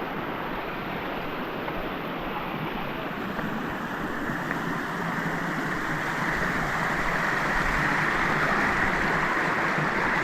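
Waterfall water rushing over rock in a steady hiss, growing louder over the second half.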